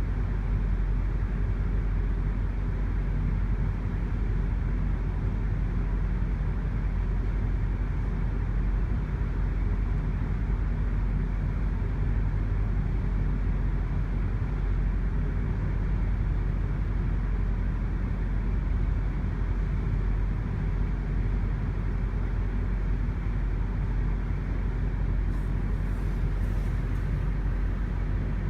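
GO Transit commuter train's diesel locomotive running with a steady low rumble.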